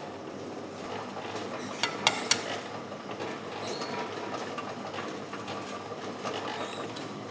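Three sharp clinks in quick succession about two seconds in, then lighter clinks of crockery over a steady background hum.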